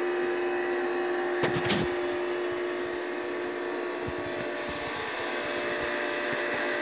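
Steady machine hum and hiss, like a fan or small motor running, with a couple of light knocks about a second and a half in.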